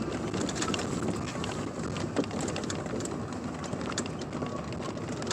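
Steady vehicle noise of a Jeep Wrangler on the move, with scattered small clicks and crackles.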